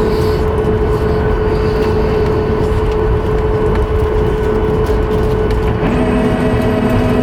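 Cabin noise of a Boeing 737 MAX 8 with its CFM LEAP-1B engines running on the ground after landing: a steady, loud rumble with a constant hum. About six seconds in, a lower and a higher hum join it.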